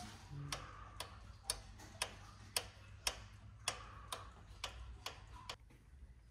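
Camshaft sprocket gears on an Audi third-generation 3.0 TDI engine clicking metal-on-metal as the sprocket is rocked back and forth by hand, about two clicks a second: the gear teeth knocking through the play between the sprockets.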